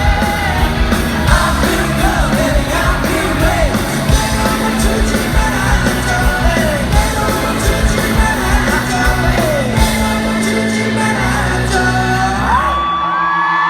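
Live pop-rock band playing loudly, with drums, bass and singing, and the crowd yelling along. Near the end the drums and bass drop out, leaving a single long held high note.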